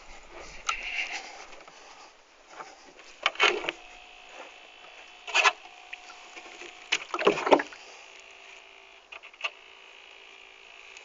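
Homemade bait boat heard from its onboard camera: several brief knocks, over a faint steady whine from its small motor.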